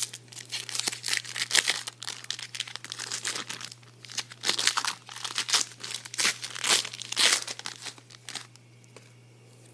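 Foil wrapper of a trading card pack being torn open and crinkled, the crackling stopping about eight and a half seconds in.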